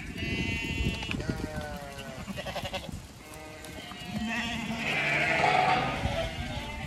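Zwartbles sheep bleating again and again, several calls overlapping and growing louder from about four seconds in, with low thuds underneath.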